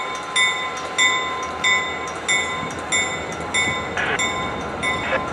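Grade-crossing warning bell ringing steadily, about three strikes every two seconds, over the rumble of a freight train rolling past.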